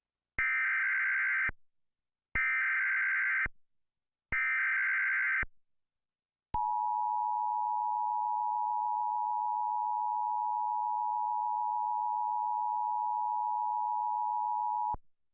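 US Emergency Alert System alert tones: three one-second bursts of SAME digital header data, then, about six and a half seconds in, the steady two-tone attention signal. The attention signal holds for about eight seconds, then cuts off abruptly.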